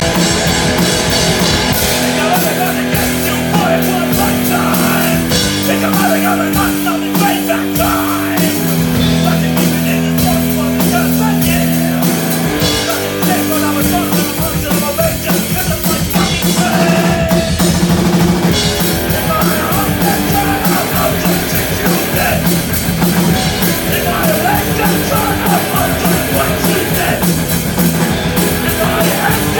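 A rock band playing live: electric guitars and a drum kit, loud and dense. Long held notes change pitch every few seconds for about the first twelve seconds.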